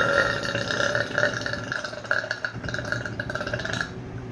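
A woman's single long, drawn-out burp, rough and steady in pitch. It stops a little before four seconds in.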